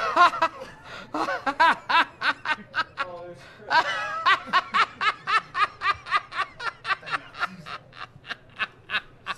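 A man laughing hard in a long fit: a steady run of short pulses, about three a second, that tails off and grows fainter toward the end.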